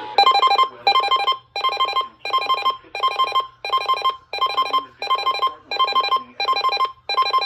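Electronic alert tone, a repeating pattern of about eleven short bursts at roughly one and a half per second, each burst a quick trill of beeps.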